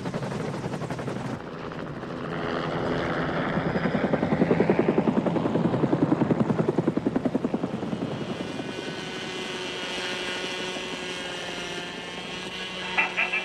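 Helicopter flying over: the rotor blades chop in a fast, even beat that grows loudest a few seconds in, then eases into a steadier engine drone.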